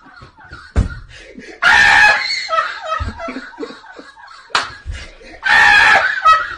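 Men laughing hard, with two loud shrieking bursts of laughter and two sharp slaps.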